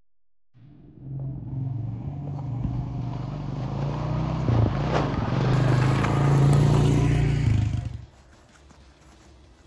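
ATV (quad bike) engine running as it is driven across an icy yard, growing louder as it comes closer, then cutting off abruptly about eight seconds in.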